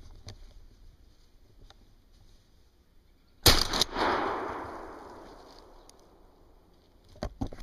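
A single gunshot from a hunting gun about three and a half seconds in, a sharp crack whose report echoes and dies away over about two seconds. A few faint clicks and rustles come before it and near the end.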